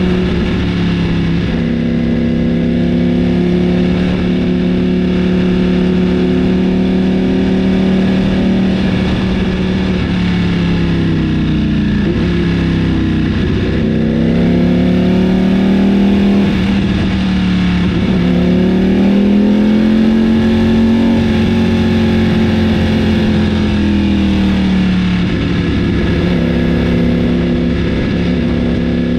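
Ducati Panigale V4's Desmosedici Stradale V4 engine running at fairly steady revs. The note sags and recovers around twelve seconds in, dips again near eighteen, then swells and eases back.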